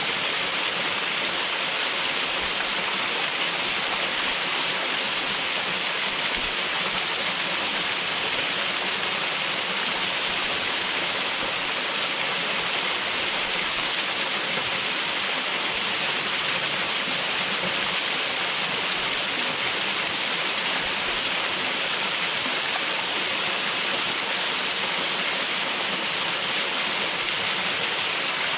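Upper drop of Tip Toe Falls, a waterfall, with water pouring and splashing in a steady, unbroken rush.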